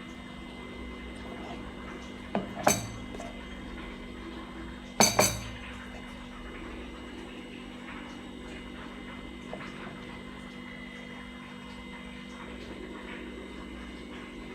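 Two pairs of sharp clinks of kitchenware, about two and a half and five seconds in, over a steady low hum.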